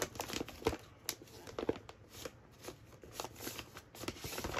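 Papers and a plastic pouch rustling as a hand rummages through a stack of sheets inside it: irregular crinkles and flicks.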